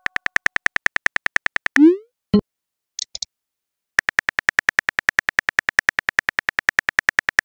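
Phone keyboard typing clicks, evenly spaced at about ten a second. They stop for a rising whoosh as a text message sends, then a short pop and two quick high blips. About four seconds in, the clicks start again as the next message is typed.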